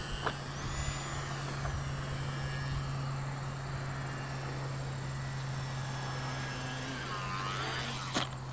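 Electric motor and propeller of a homemade aerobatic RC plane droning steadily in flight, with a short knock near the end as the plane comes down onto the grass.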